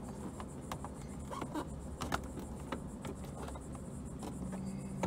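Faint, scattered clicks and light taps of a plastic windshield sun shade being handled and slid into plastic overhead brackets, over a low steady hum.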